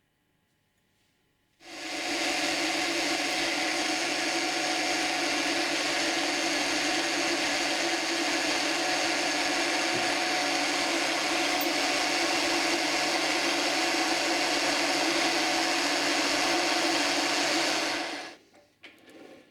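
A powered machine tool starts about two seconds in, runs at one steady pitch and level, then stops near the end.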